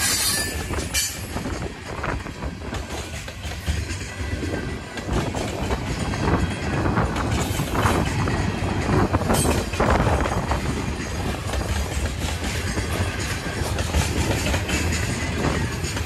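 Empty grain hopper cars of a freight train rolling past, the wheels clacking and rattling steadily over the rail joints.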